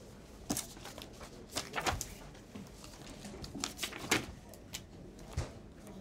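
Papers being handled at a desk: a series of short rustles and light knocks, busiest around two seconds in and again around four seconds in.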